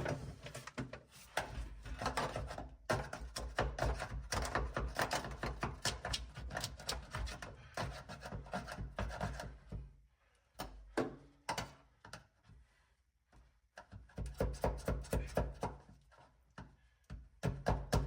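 Rapid knocking and scraping as dry-ice-frozen, brittle sound deadener is whacked and chipped off a car's steel floor pan, with a quieter pause in the middle.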